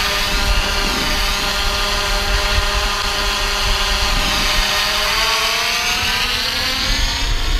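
DJI Mavic Pro quadcopter's propellers whining as it hovers a few metres up, then rising in pitch about five seconds in as the motors speed up and it pulls away in sport mode. Strong wind rumbles on the microphone.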